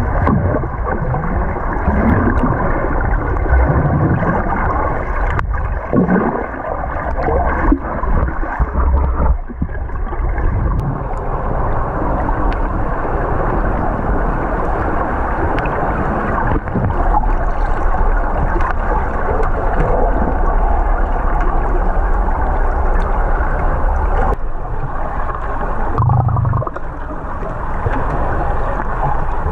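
Muffled underwater sound from a GoPro in its waterproof housing: water gurgling and rushing against the housing over a steady low rumble, with a few brief clicks and a short low thump near the end.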